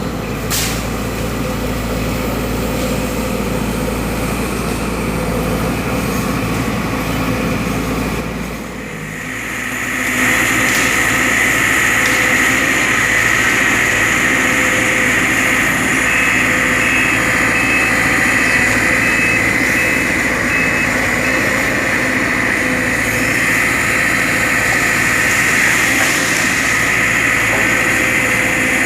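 Sumitomo SH210 excavator running steadily. About a third of the way in the sound dips briefly, then comes back louder with a steady high whine on top.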